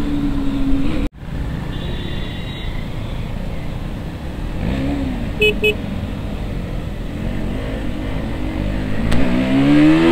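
KTM RC 200's single-cylinder engine running while the motorcycle rides in traffic, with wind rushing over the microphone. Its pitch climbs as it accelerates near the end, and two short beeps sound about halfway through.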